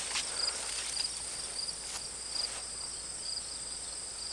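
Crickets and other insects calling in the garden: a steady high-pitched trill with short chirps repeating several times a second over it. A few faint rustles are also heard.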